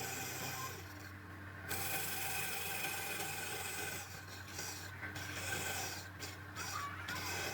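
Wood lathe running with a steady hum while a cutting edge rasps against the spinning wood. The rasping lifts off briefly about a second in and several times in the second half.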